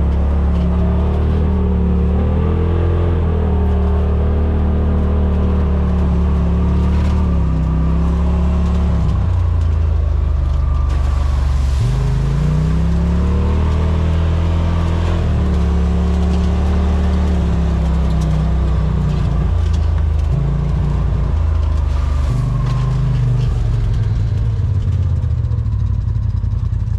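Side-by-side UTV engine running steadily as it drives a trail. Its pitch rises and falls with the throttle, and it speeds up about twelve seconds in.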